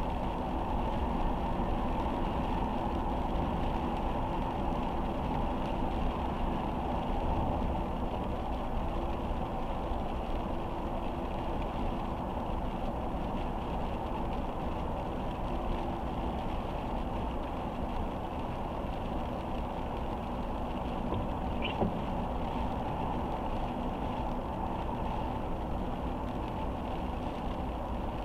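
Steady road noise of a car driving in slow, steady rain, heard from the dashcam inside the car: tyres on wet pavement and rain, with one brief click about three-quarters of the way through.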